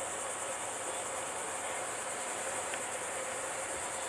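Steady high-pitched buzz of an insect chorus, with a faint low steady hum underneath.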